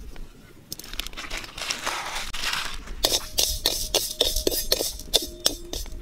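A spatula scraping and tapping dry sugar grains around the bottom of an aluminium kadai. A soft scratchy rustle comes first, then from about halfway a quick run of sharp knocks that set the pan ringing.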